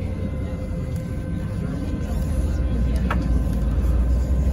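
City bus driving, heard from inside the passenger cabin: a steady low engine and road rumble with faint steady whine tones above it, growing a little louder in the second half. A single short click about three seconds in.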